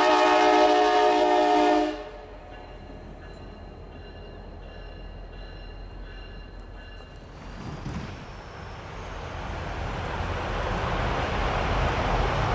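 CSX F40PH locomotive's air horn sounding a chord, cutting off sharply about two seconds in. After a quiet stretch, a low rumble of a diesel locomotive builds from about eight seconds in and grows louder as it approaches.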